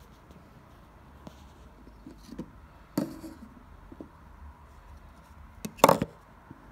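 Faint steady hum with a few light ticks and two sharp knocks, one about three seconds in and a louder one near the end.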